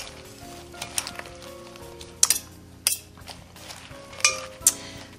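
Salad servers tossing dressed spinach leaves in a glass bowl: the leaves rustle as they are turned, and the metal utensils clink sharply against the glass about five times.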